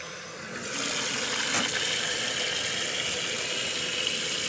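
Tap water pouring in a steady stream into a Ninja Foodi's inner pot full of pork bones. The rushing gets louder about a second in as the stream grows heavier, then holds steady.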